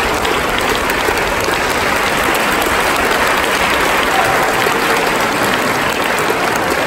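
Audience applauding a choir: a dense, steady sound of many hands clapping.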